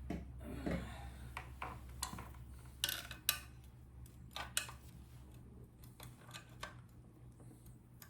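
Small metal tools clicking and clinking against the parts of a Daisy airgun's spring mechanism as it is worked by hand, a few irregular sharp ticks, the loudest about three seconds in. The mechanism is stuck in the cocked position.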